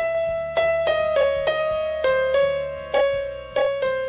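Outro music: a melody on piano or electric piano, notes struck about every half second and stepping downward in pitch.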